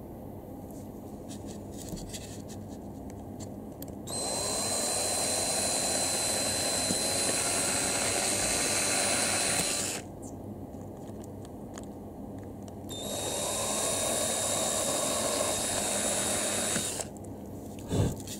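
Small electric drill running in two bursts, the first about six seconds long and the second about four, spinning up as each starts. It is boring ventilation holes through the plastic case of an action camera.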